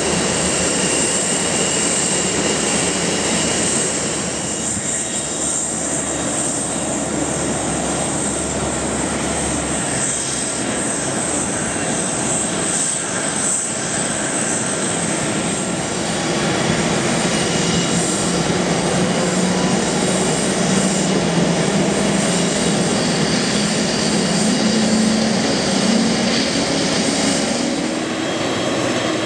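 Boeing 747-400D jet engines running at idle, a steady roar with a high whine, while the airliner is pushed back by a tug. In the second half a lower drone slowly rises in pitch.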